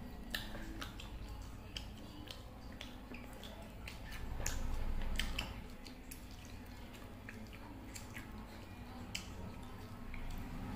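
Close-up eating sounds: fingers mixing and squishing biryani rice with curry on a stainless-steel plate, between wet chewing and lip-smacking clicks. A low rumble swells briefly about halfway through.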